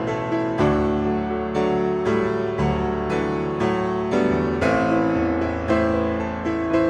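Background piano music, with gentle notes struck about twice a second and left to ring.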